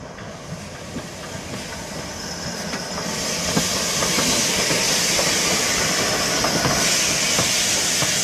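Ivatt 2-6-0 2MT steam locomotive running slowly past at close range. A steady hiss of steam grows louder from about three seconds in as the engine draws near, with scattered clicks and knocks from the wheels on the rails.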